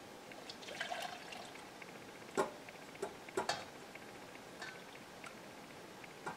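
A runny egg, orange-juice and butter mixture is poured and scraped with a silicone spatula out of a stainless steel mixing bowl into a saucepan. It is a soft, quiet pour broken by a few light, sharp taps of the spatula and bowl against metal.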